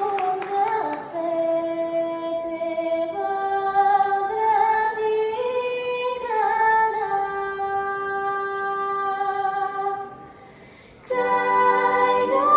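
A girl's voice singing a slow, unaccompanied melody solo, with long held notes. Near the end the singing stops for about a second, then comes back fuller, with a lower part added.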